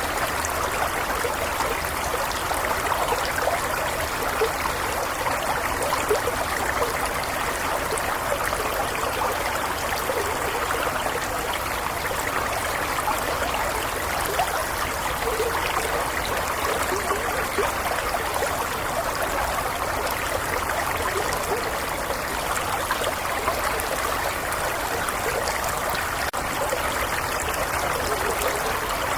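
A small stream flowing steadily over stones, with a continuous trickling and babbling.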